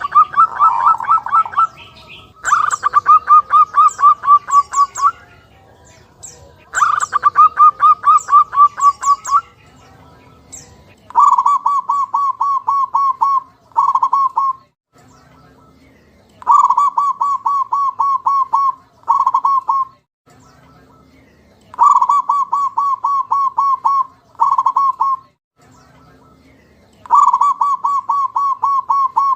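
Zebra dove (perkutut) calling: repeated phrases of rapid, evenly spaced short notes, each phrase about two seconds long, with pauses between. In the second half each long phrase is followed by a brief one, in a steady repeating pattern.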